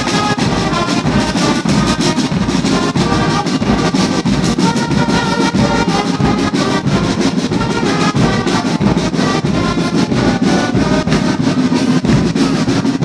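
Brass band music playing loudly and without a break.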